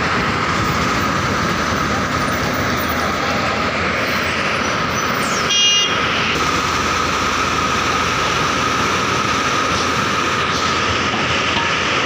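Tata Hitachi excavator's diesel engine running steadily, with a steady whine over the engine noise. A brief high toot sounds about halfway through.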